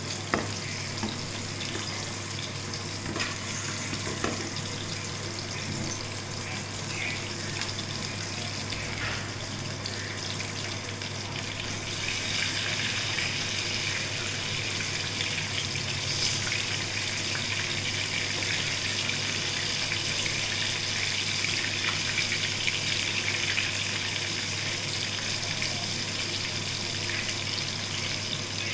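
Hot oil sizzling steadily as food fries in a pan, the hiss growing louder about twelve seconds in.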